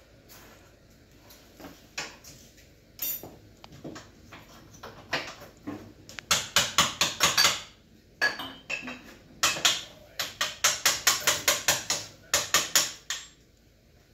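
Runs of sharp metallic taps from work on a gas cooktop, scattered at first, then quick trains of about five a second from about six seconds in.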